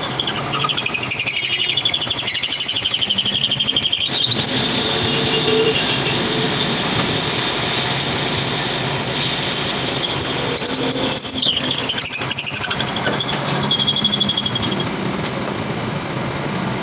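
Metal lathe running while it cuts a steel part, the cutting tool giving a high, wavering squeal over the steady machine noise. The squeal is strongest in the first few seconds and again about two-thirds of the way through.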